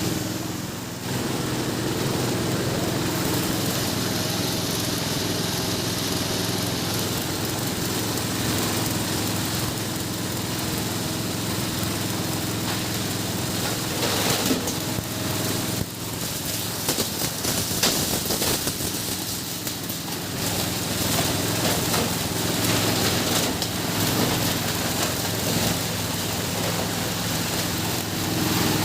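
Waste sorting machine running under the power of its 16 HP single diesel engine, a steady engine drone, with knocks and rattles from the machine's working parts partway through.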